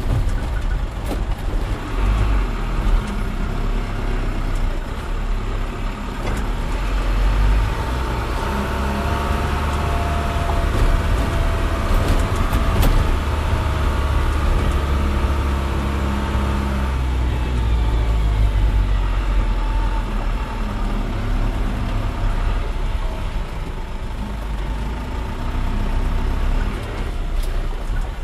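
Truck engine running while the truck drives along a rough dirt road, heard from inside the cab, with a few sharp knocks from the bumpy ride.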